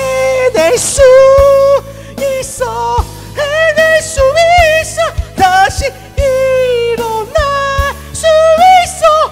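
A man singing long, held high notes with vibrato over a pop backing track with drums.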